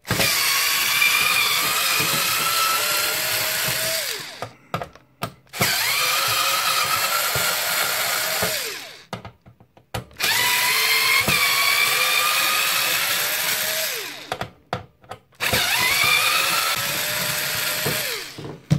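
Power drill with a screwdriver bit backing screws out of a cassette deck's sheet-steel chassis, in four runs of about three to four seconds each; the motor's whine falls away as each run stops.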